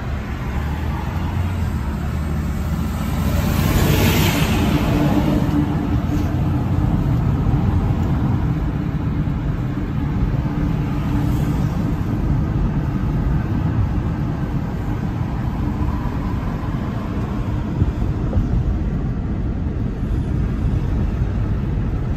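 Steady road and engine noise heard inside the cabin of a moving Kia car driving at speed. A brief rush of noise swells about four seconds in.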